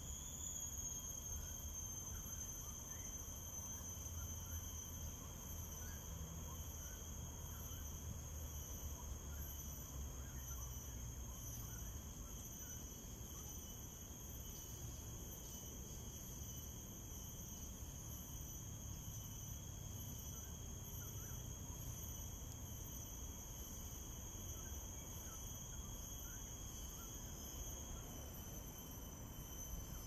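Steady insect chorus: continuous high-pitched trilling at several pitches at once, over a low rumble.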